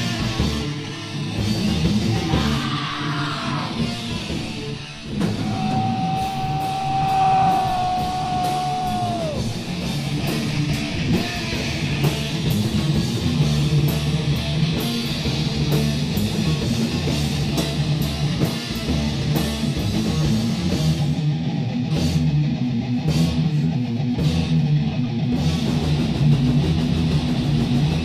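Live heavy metal band playing: distorted electric guitar, bass and fast drums. About a fifth of the way in, a long held note rings out for several seconds and slides down at its end.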